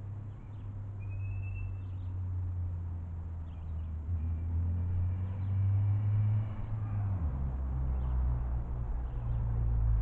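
A motor's low, steady drone that drops in pitch about seven seconds in and grows louder toward the end, with a few faint high bird chirps over it.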